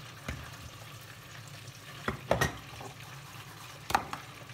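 Breaded chicken pockets deep-frying in oil, with a steady sizzle. Four sharp knocks sound over it: one early, two close together about halfway and one near the end.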